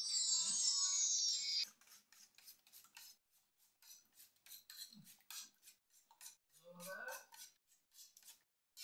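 Spoon beating eggs in a stainless steel bowl: quick, repeated clinks and scrapes of metal on metal. It opens with a loud high hiss lasting about a second and a half.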